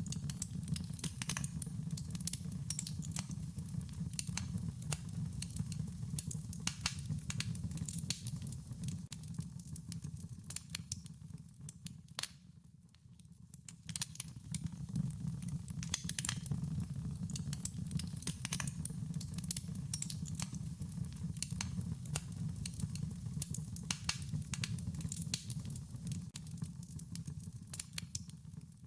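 Wood fire crackling, with rapid irregular pops and snaps over a steady low rumble of the flames, easing off briefly a little before halfway.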